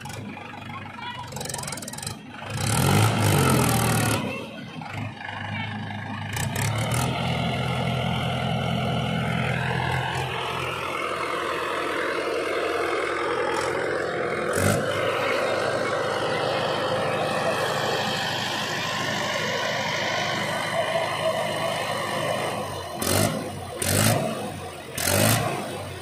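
Mahindra 575 DI tractor's diesel engine running and revving, with a loud surge about two seconds in, then running steadily while the trolley bed is tipped, and three short loud bursts near the end.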